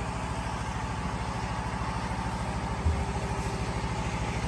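An engine running steadily at idle with an even low pulse, and a single dull thump about three seconds in.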